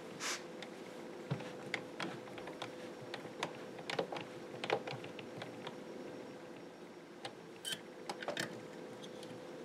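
Scattered small metallic clicks and taps as a hand screwdriver turns a screw and steel fittings of an Arisaka Type 99 rifle are handled and fitted, over a faint steady hum.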